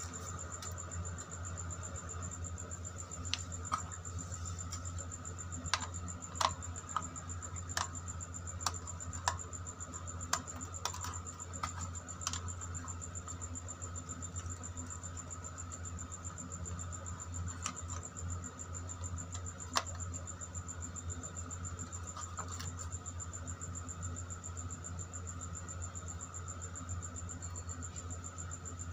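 Scattered light clicks and taps as wires and a plastic switch-and-socket plate are handled, mostly in the first half. Under them run a steady low hum and a thin, high steady tone.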